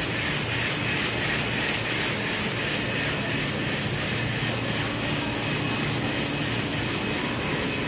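Steady rushing of air from large warehouse ventilation fans, with one short click about two seconds in.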